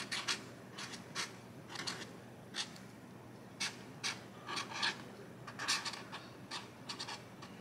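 Sharpie permanent marker writing on painter's tape stuck to a plastic crate lid: a quiet run of short, irregular scratchy strokes as the letters and numbers are drawn.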